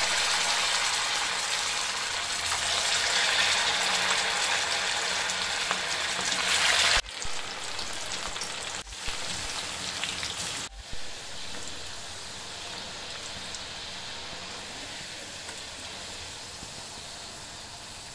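Marinated chicken pieces deep-frying in hot oil in a kadai, a dense bubbling sizzle. It is loudest over the first seven seconds or so, then breaks off sharply a few times and goes on softer and steady.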